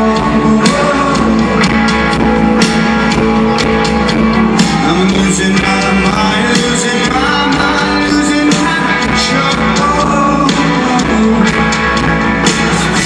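Rock band playing live, a singer over electric guitars, bass and drums, loud and dense as picked up by a phone's microphone in the crowd.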